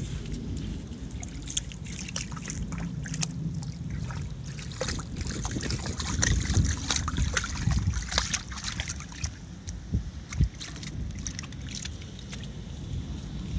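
Shallow seawater lapping and trickling, with many small crackles and splashes, busiest in the middle, over a low rumble of wind on the microphone.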